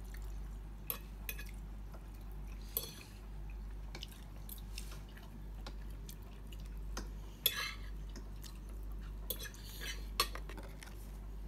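A person eating pizza close to the microphone: chewing and small mouth clicks, with a few short crackly bursts scattered through, over a steady low hum.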